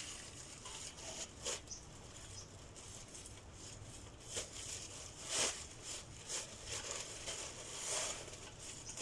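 Eating noises of two people having instant noodles: irregular soft clicks and scrapes of utensils on plates and rustling of a plastic bag, a few of them sharper than the rest.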